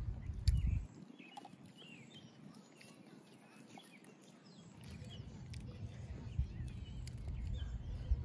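Small birds chirping over and over, with a low rumble of wind on the microphone that drops away about a second in and comes back strongly in the second half.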